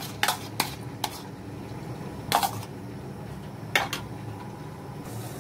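Kitchenware clinking: a few sharp taps of a bowl and utensils against a cooking pot in the first second, then two more about two and a half and four seconds in, over a faint steady background.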